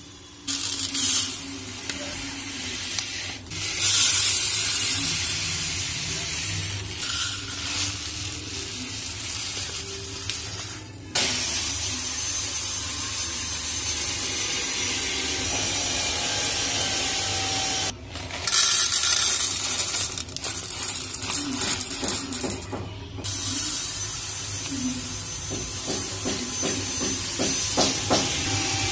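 Dry whole spice seeds such as cumin and mustard poured from packets into the plastic compartments of a spice box: a hissing rattle in several separate pours with short breaks between.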